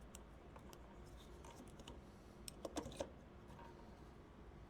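Faint clicks and taps of small plastic parts being handled, with a short cluster of sharper clicks about two and a half seconds in; otherwise near silence.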